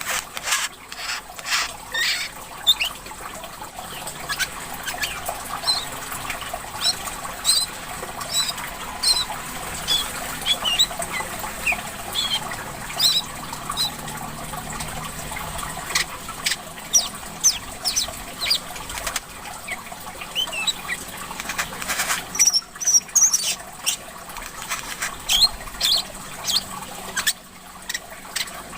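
Green white-eye (korlap) singing energetically: rapid strings of short, high chirps and quick twittering notes, over a steady trickle of running water.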